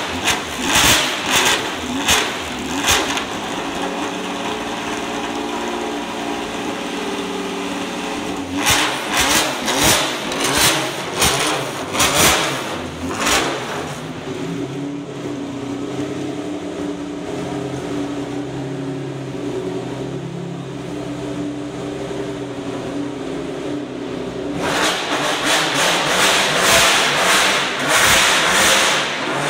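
Ford Supervan 3's early-1990s Cosworth V8 Formula 1 engine running at idle and being revved in short sharp blips: a quick series of blips at the start, another series about nine seconds in, then a longer held rev near the end.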